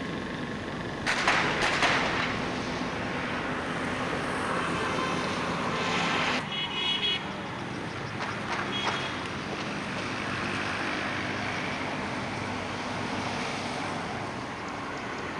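Steady engine and road noise of a moving vehicle, with loud short rushes about a second in and again around six seconds, and a brief high-pitched tone just after.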